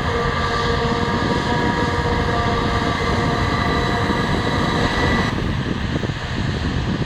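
Heavy farm machinery running: a deep engine rumble with a steady high mechanical whine over it. The whine cuts off suddenly about five seconds in, leaving the rumble.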